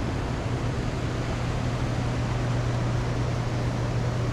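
A steady low hum over an even rushing noise, unchanging throughout.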